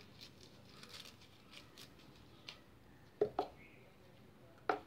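Garlic cloves handled and dropped into a plastic bottle: faint rustling, then light knocks, two close together about three seconds in and one more near the end.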